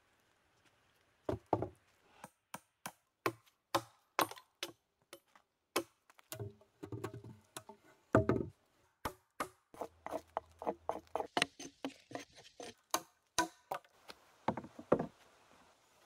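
Many sharp wooden knocks and chopping blows as logs are worked and set onto a log frame, with heavier thuds of logs landing about a second in, in the middle, and near the end.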